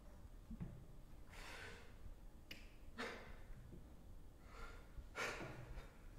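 A person's faint, breathy gasps: three of them, about two seconds apart, with a small click between the first two.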